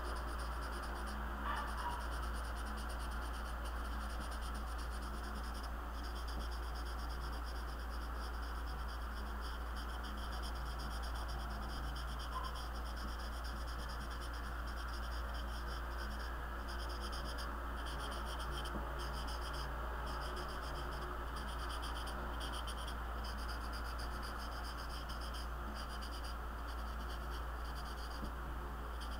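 Black marker tip rubbing and scratching on sketchbook paper in quick repeated strokes as an area is filled in solid, over a steady low hum.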